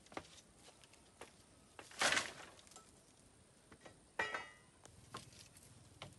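Scattered knocks and rustles of someone climbing a lashed wooden pole ladder onto a pole platform and shifting branches. There are two louder scrapes, about two and about four seconds in, and the second carries a short creak.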